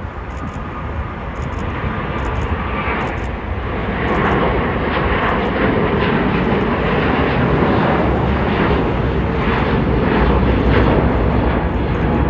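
Airbus A350 airliner's jet engines at takeoff power as it lifts off and climbs out. The roar grows louder over the first four seconds, then holds steady and loud.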